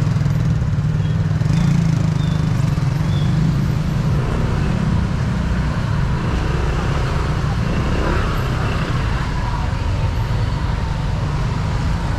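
Street traffic: a steady low rumble of passing road vehicles.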